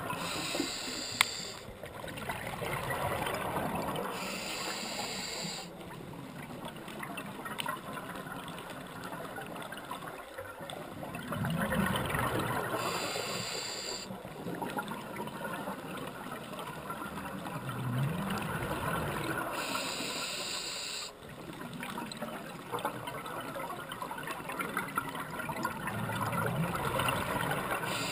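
A scuba diver breathing through a regulator, heard underwater: a hiss on each inhale, four or five times at intervals of several seconds, with bubbling and gurgling from the exhaled air in between.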